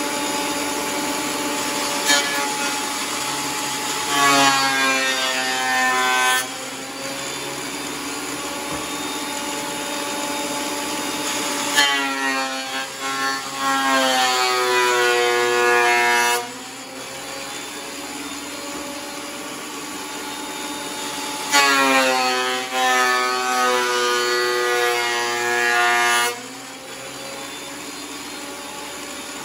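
WEN thickness planer running, with a board fed through it three times. Each pass lasts about four to five seconds and is louder, and the motor's pitch sags as the cutterhead bites into the wood. Between passes it settles back to a steadier running note.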